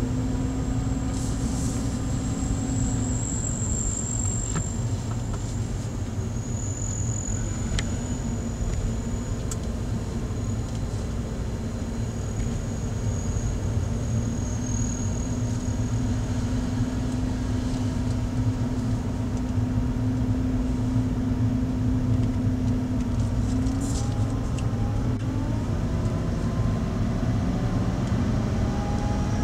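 Car engine and tyre noise heard inside the cabin while driving: a steady low rumble with a held hum. The engine note rises in the last few seconds.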